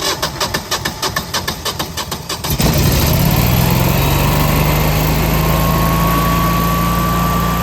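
Generac 22 kW Guardian natural-gas standby generator's V-twin engine cranking on the starter for about two and a half seconds, at about six strokes a second, then catching and settling into a steady run. It is a manual cold start for a warm-up run.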